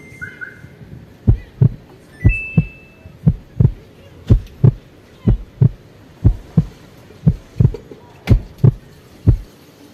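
Samsung wobble top-load washing machine knocking in a steady double thump, about one pair a second, after a short beep from its control panel.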